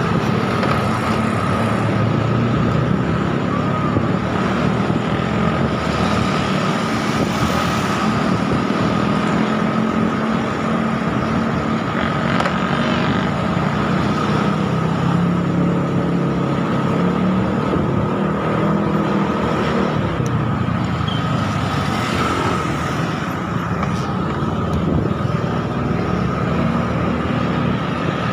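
Motor scooter engine running while riding along a street, mixed with road and traffic noise. The level stays steady, with a thin high whine held above the engine.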